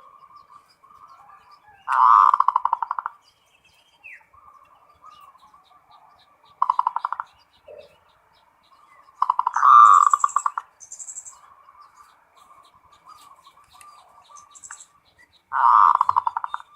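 Zebra dove (perkutut) cooing in four loud phrases of rapid, rolling coos, each lasting about half a second to a second and a half. Fainter rolling calls at the same pitch fill the gaps between them, and a few short high chirps come in around the middle and near the end.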